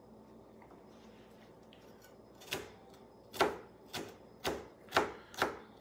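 Kitchen knife dicing a bell pepper on a cutting board: quiet for about the first two seconds, then about six sharp chopping knocks, roughly two a second.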